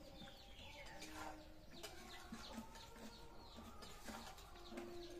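Faint background birds chirping and whistling, with a few light clicks of a ladle stirring in a metal wok.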